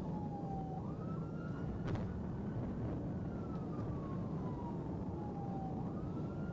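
Police car siren on a wail setting, each sweep sliding slowly down over a few seconds and then quickly back up, heard over the steady road and engine rumble inside the pursuing patrol car. A single brief click about two seconds in.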